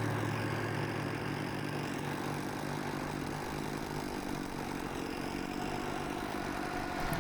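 Gasoline chainsaw engine running at a fairly steady speed, a continuous mechanical hum.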